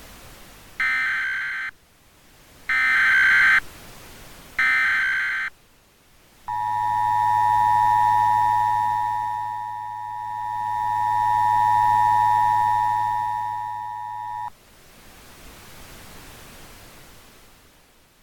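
Emergency Alert System signal over a hissing radio: three one-second bursts of SAME header data tones, then the EAS two-tone attention signal held for about eight seconds, its loudness slowly swelling and fading, with a low hum under it. It marks the start of a national emergency alert.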